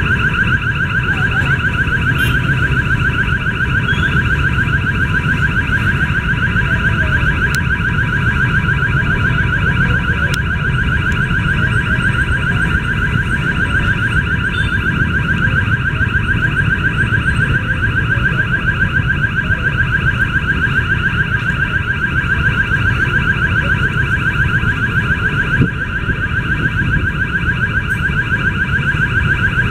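Railway level-crossing warning alarm sounding continuously from the signal post's horn loudspeaker: a loud, fast and even pulsing ring, the signal that a train is approaching and the crossing is closed. A low rumble of idling traffic lies underneath.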